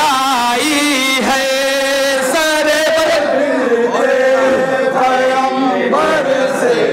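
Several men chanting a devotional Urdu manqabat together into a microphone, holding long, wavering notes.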